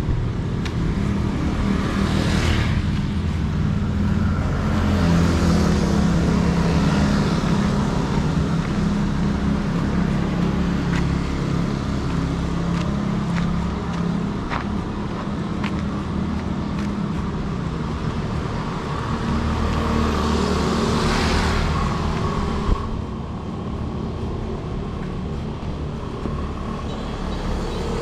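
Street traffic: vehicle engines running close by with a steady hum, and several vehicles passing. There is a single sharp knock about 23 seconds in.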